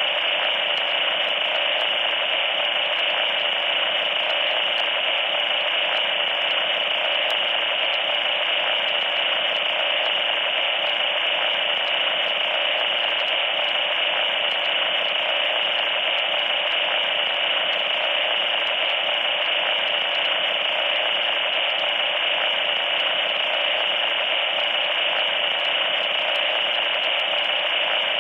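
Loud static noise: a harsh, steady hiss that does not change.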